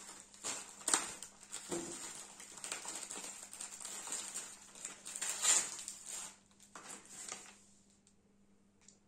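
Close handling noise: paper and kit packaging rustling with scattered light clicks and taps. It dies down after about seven seconds.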